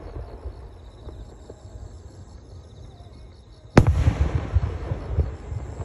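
Aerial firework shell bursting with one sharp bang nearly four seconds in, followed by rumbling echoes. Before it, a low rumble hangs over from earlier bursts.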